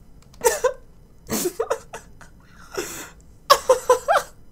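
A man laughing helplessly in several breathy, gasping bursts, ending in a quick run of short laughs about three and a half seconds in. He is laughing so hard he is close to tears.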